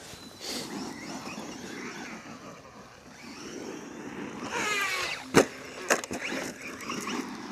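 MJX Hyper Go 10208 V2 RC truck running over dirt, its electric motor whining up and down in pitch about four and a half seconds in. A loud sharp knock follows about five and a half seconds in, then a smaller one half a second later.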